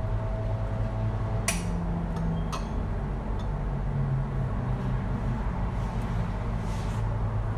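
Light clinks and ticks of ceramic dishes handled while breading eggplant slices, two sharper ones about one and a half and two and a half seconds in, over a steady low hum.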